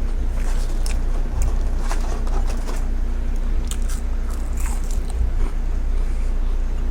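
Close-miked chewing and biting of a burger, with crisp crunchy clicks scattered through, over a steady low hum.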